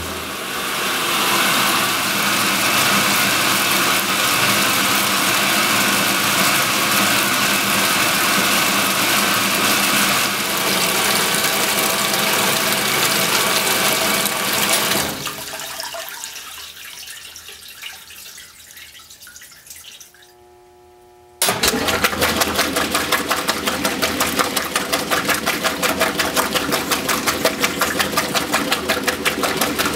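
Water running steadily into the tub of a 1963 Frigidaire Custom Imperial top-load washer as it fills, then fading away. About two-thirds of the way through, the washer starts agitating suddenly: its Multi-Matic belt-drive transmission swings a Deep Action agitator back and forth, a rhythmic churning of motor, drive and sloshing water.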